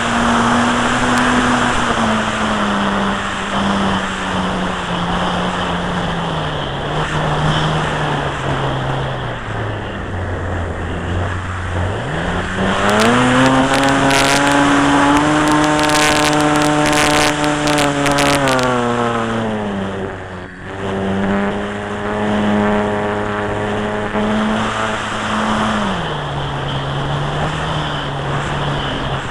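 Electric model airplane's motor and propeller heard from the onboard camera, a steady pitched whine that follows the throttle: it sinks low about ten seconds in, climbs to its highest pitch about two seconds later and holds for several seconds, then drops back about nineteen seconds in and steps down again near the end. A steady rush of air over the microphone runs underneath.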